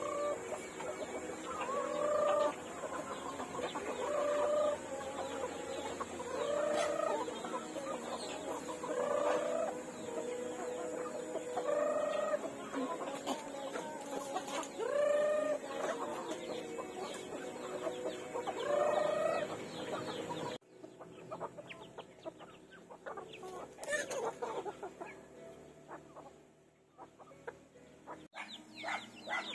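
A flock of chickens clucking, with one short call repeating about every two to three seconds. About two-thirds of the way through the sound suddenly drops quieter, leaving scattered softer clucks.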